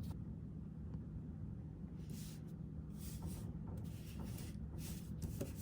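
Faint rustling from handling a few times in the middle, over a steady low hum.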